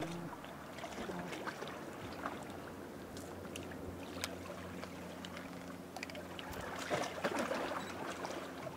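Steady low hum of a distant motorboat engine over calm water, with small scattered clicks and a brief louder rush about seven seconds in.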